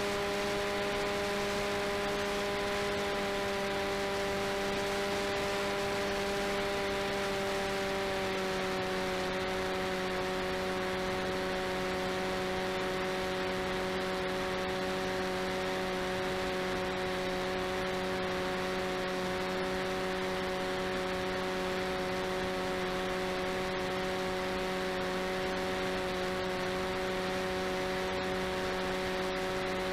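RCTimer 5010 630KV brushless outrunner motor and propeller of an FPV delta wing running at steady throttle: a steady whine over wind rush on the onboard camera's microphone. The whine drops slightly in pitch about eight or nine seconds in.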